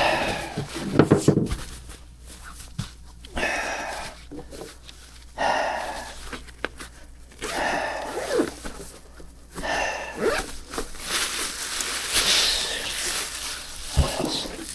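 A man breathing heavily, out of breath, with a loud exhale about every two seconds. A few knocks near the start and one near the end.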